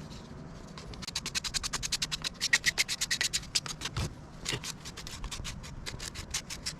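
Sandpaper being rubbed by hand over a freshly cut piece of plywood in quick back-and-forth strokes, about five a second, smoothing off splinters.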